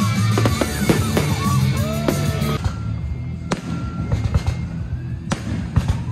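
Fireworks display: aerial shells bursting overhead in several sharp, separate bangs. Music plays over the first couple of seconds, then cuts off, leaving the bangs on their own.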